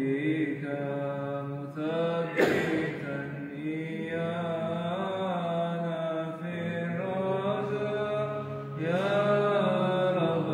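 Byzantine Orthodox chant: a melodic vocal line sung in phrases over a steady held drone (ison). About two seconds in there is one short knock.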